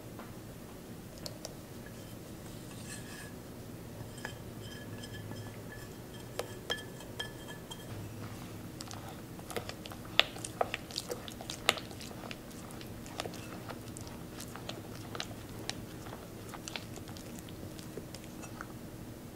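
Spatula stirring thick chocolate batter in a glass bowl. A faint high squeaky tone comes in short dashes in the first half, then a run of light clicks and taps against the glass in the second half.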